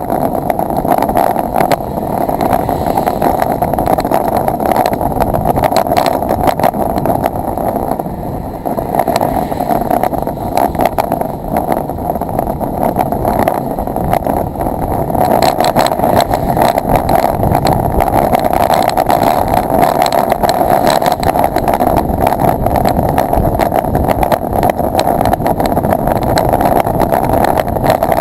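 Steady rush of wind over a bike-mounted camera's microphone, mixed with the hiss of tyres on a wet road, as a road bike is ridden at speed. Small knocks from the bike and mount come through often.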